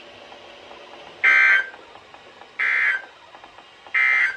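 Three short bursts of Specific Area Message Encoding (SAME) digital data tones from a NOAA Weather Radio Emergency Alert System broadcast, each about a third of a second long and spaced about a second and a half apart. Short bursts repeated three times like this are the end-of-message code that closes an alert.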